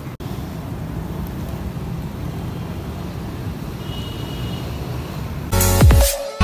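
Steady street-traffic rumble, an even low noise with no distinct events. About five and a half seconds in, loud outro music cuts in over it.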